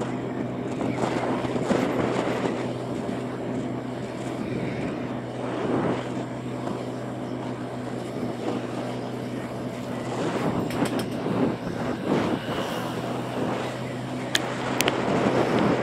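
Motorbike engine running at a steady speed while riding, a constant low hum under wind and road noise on the microphone. Two sharp clicks near the end.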